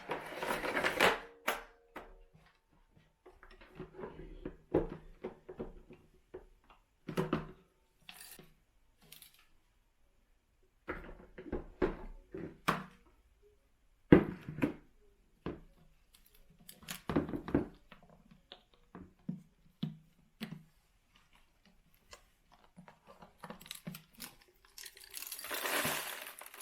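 Plastic clicks, knocks and rattles of a Bissell ZING bagless canister vacuum's dirt container being unlatched, opened and emptied, in separate short bursts with quiet gaps between them. Near the end comes a longer rustle.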